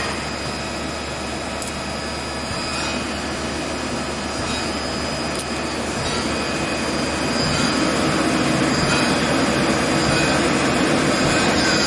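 Okuma CNC lathe running: a steady mechanical hum with a constant high whine, growing somewhat louder about halfway through.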